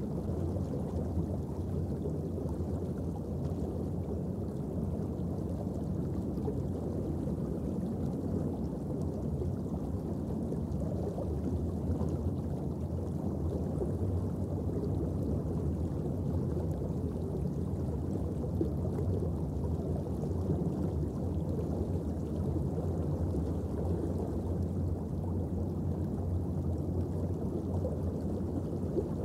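Steady low rumble of underwater ambient noise, even and unbroken, without clicks or distinct events.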